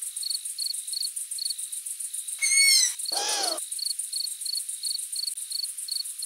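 Juvenile long-eared owl giving one high, plaintive, downward-sliding begging squeak a little before the middle, food-begging, answered at once by a shorter, lower call from an adult. Crickets chirp steadily underneath at about two to three chirps a second.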